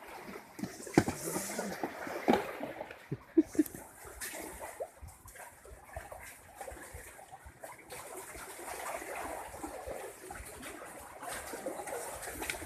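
Sea water lapping and splashing, with a few short knocks in the first few seconds.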